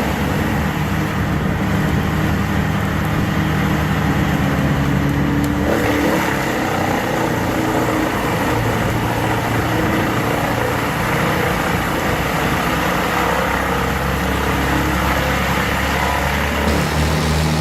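WC 2500 XL whole tree chipper running under power: a loud, steady engine drone with dense noise over it. The sound changes abruptly about six seconds in and again near the end.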